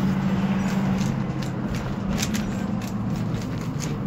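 Speed cube layers clicking as they are turned, irregular sharp clicks over a steady low hum.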